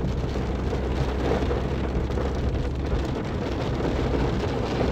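Rain falling on the roof and windscreen of a moving Suzuki Baleno, heard from inside the cabin, over a steady low rumble of the engine and tyres on the wet road.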